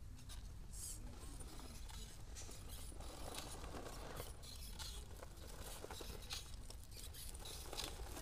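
1:10 scale RC rock crawler crawling over paving stones scattered with dry leaves: its tyres crackle and scrape on the grit and leaves, getting busier and closer about three seconds in.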